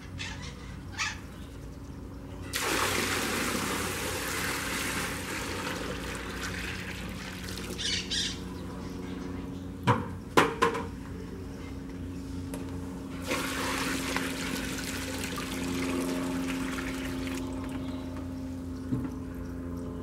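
Water gushing from a PVC pipe outlet and splashing into a plastic tub of water, in two spells of several seconds each, about two and a half seconds in and again about thirteen seconds in. A few sharp knocks fall between the spells, over a steady low hum.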